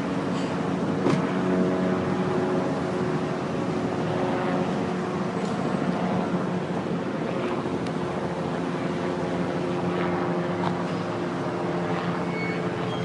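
Helicopter running steadily: a constant engine hum holding several steady pitches, with a few faint clicks.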